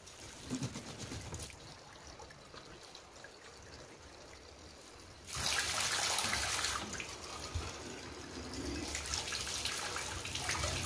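Water running from a tap into plastic bottles as they are filled, a steady rush that gets noticeably louder about halfway through as the stream splashes into the concrete basin.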